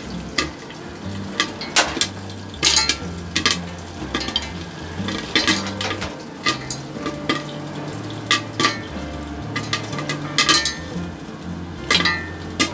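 Popcorn kernels bursting in hot oil in a pan under a transparent lid: sharp, irregular pops, about one or two a second, some clinking against the lid, over a steady sizzle of frying oil.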